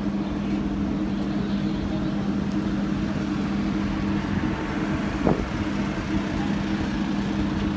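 Steady low mechanical hum over outdoor background noise, with one short sharp sound about five seconds in.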